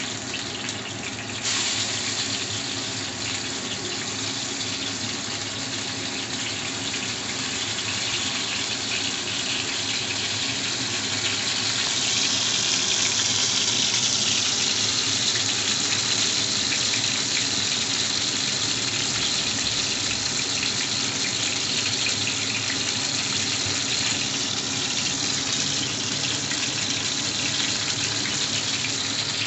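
Lote (Bombay duck) fish chops shallow-frying in hot oil in a nonstick pan, a steady sizzle. It grows louder about a second and a half in, and brighter again about halfway through.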